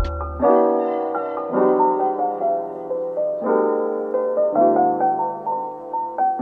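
Instrumental background music: soft electric piano chords changing about once a second, with the beat dropping out about half a second in.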